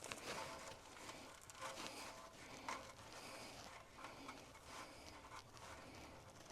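Faint rubbing and scraping with a few light clicks, from hand work on the engine.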